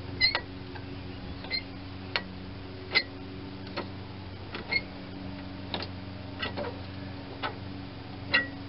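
Metal wrench clinking and clicking against a bolt and the steel frame of a garden tractor as it is fitted and turned, sharp ringing clicks at irregular intervals of roughly a second, over a steady low hum.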